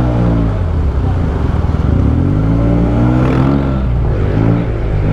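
Yamaha TMAX 560 Tech MAX maxi-scooter's parallel-twin engine through a Termignoni full-system exhaust, heard from the rider's seat. Its note rises as the throttle opens and drops as it eases off, twice.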